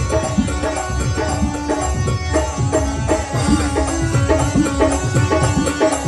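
Background music with a steady hand-drum rhythm, its low drum strokes bending in pitch, under a sustained melody.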